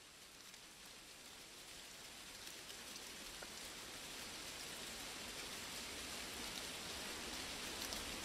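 Rain falling, with scattered drop ticks, swelling slowly and steadily louder as it fades in.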